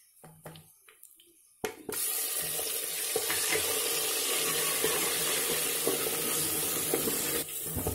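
Ginger-garlic paste sizzling in hot oil in a clay handi. The sizzle starts suddenly about two seconds in, holds steady and loud, and eases a little near the end.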